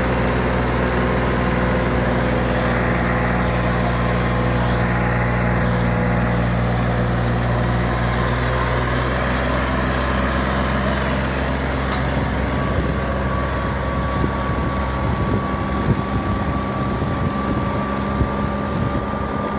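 John Deere 5045 4x4 tractor's diesel engine working steadily under load as it pulls a sack-weighted disc harrow through the soil. About twelve seconds in, the steady drone turns rougher and less even.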